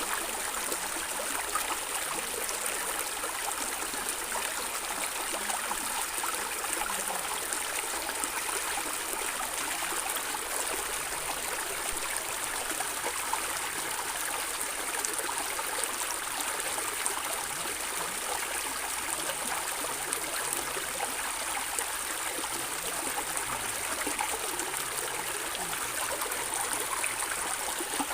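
Stream water flowing and gurgling steadily, an even rushing wash with no breaks.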